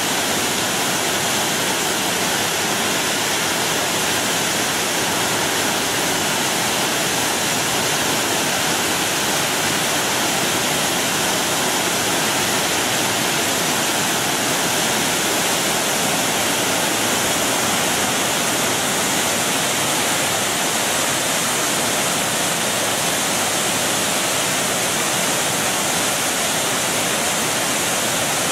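Pliva waterfall at Jajce: a large cascade of river water falling steadily, an unbroken, loud rush.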